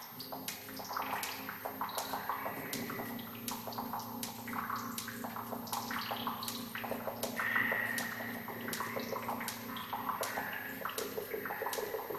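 Experimental live sound performance: a low, throbbing drone under a shifting, watery gurgling texture, with sharp clicks about twice a second.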